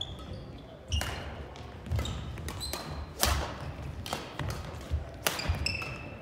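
Badminton rackets striking a shuttlecock in a rally, sharp hits about a second apart, the loudest about three seconds in, with short high squeaks of shoes on the hardwood court between them.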